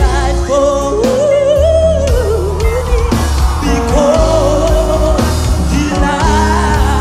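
Gospel song: a lead singer with a wavering vibrato over held chords and a strong, steady bass line.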